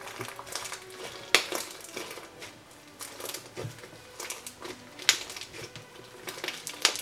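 Foamy bead-studded slime squeezed and poked by hand, crackling and clicking with small pops, with sharper pops about a second in, near the middle and near the end. The slime has partly dried out where its foam was popped.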